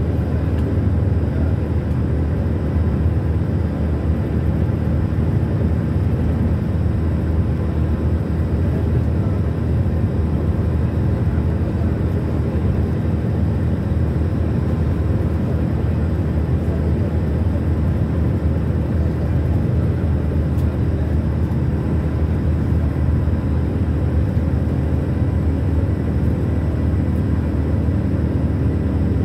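Steady low rumble of road and engine noise from a car travelling at highway speed, heard from inside the car.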